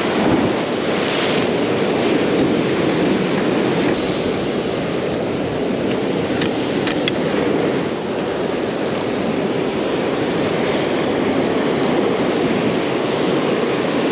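Ocean surf breaking and washing over shoreline rocks, a steady rushing wash of white water.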